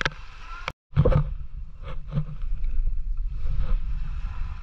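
A gill net being shaken and picked over a basin: scattered knocks and rustles as the net and small fish drop into it, over a steady low wind rumble on the microphone. The sound cuts out completely for a moment just under a second in.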